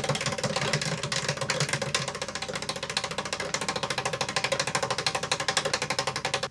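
A spinning prize wheel, its pointer flapper clicking against the pegs in a rapid, even run of ticks, with steady musical tones underneath.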